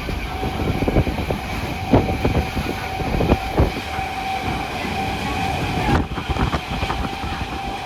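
Train running along the track: a steady rumble with repeated clacks of the wheels over rail joints, and a thin steady whine through most of it.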